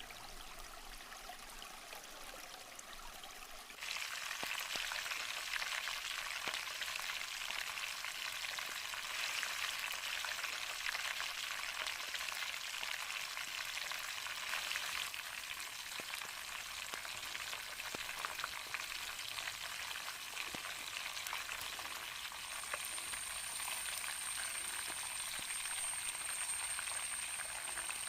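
Chicken pieces frying in hot oil: a dense, steady sizzle and crackle that starts abruptly about four seconds in, after a softer hiss. A thin, high, steady whine joins near the end.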